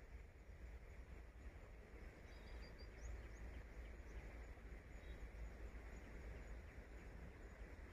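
Near silence: a faint steady low rumble, with a few faint high bird chirps about two to three seconds in and again a little later.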